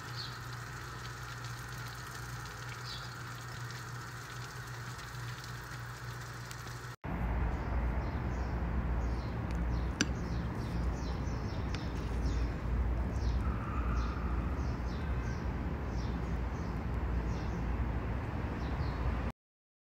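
A steady hum, then after a cut about seven seconds in a louder low rumble with many short, high, falling chirps of small birds and a single click.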